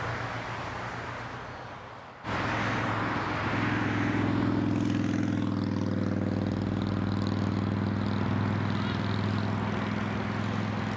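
Steady engine drone with a low hum, fading away and then coming back abruptly about two seconds in.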